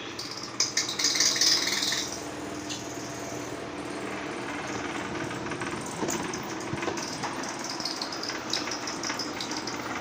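Small local-brand tower fan running with a steady, rapid mechanical rattle. The owner traced this running noise to the blower wheel's slats coming unglued from its end joints. A few louder clicks and hiss come in the first two seconds as it is set going.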